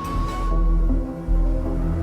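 Spooky Halloween background music: deep pulsing bass under sustained eerie notes, with a held high tone fading out about half a second in.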